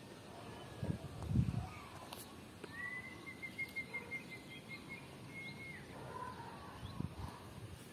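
A bird calling: one high note held for about three seconds, with a rapid trill in the middle, over quiet outdoor background. A couple of soft low thumps come about a second in.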